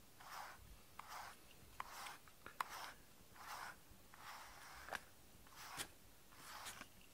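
Steel-pin slicker brush drawn through a cat's fur: soft scratchy strokes, about one a second, with a few faint clicks in between.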